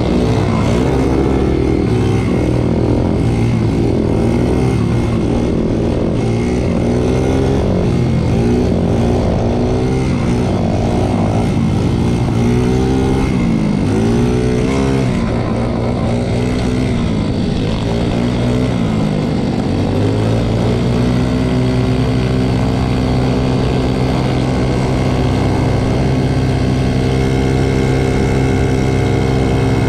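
Small moped engine running while riding. Its pitch rises and falls over and over for the first twenty seconds or so as the throttle is opened and closed, then holds steady at a constant speed.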